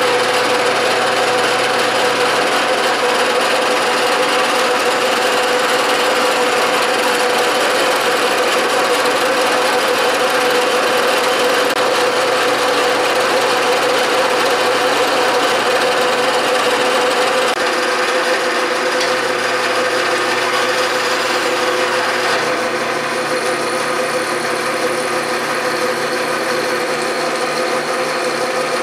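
Bridgeport milling machine running an end mill through a metal bar while the power feed moves the table at its slowest feed: a steady machining sound with one strong humming tone, a little quieter for the last few seconds.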